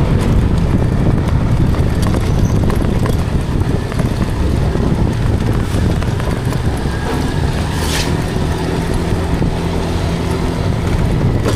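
Car driving, its engine running under a steady low rumble of road noise.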